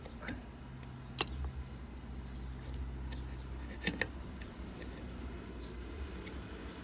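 A few sharp clicks and taps of a tool working at a rubber bung in a car body: one about a second in, then two close together near four seconds in, over a steady low hum.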